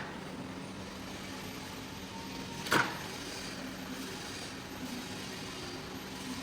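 A steady mechanical hum with a faint hiss, and one short, loud burst about two and three-quarter seconds in.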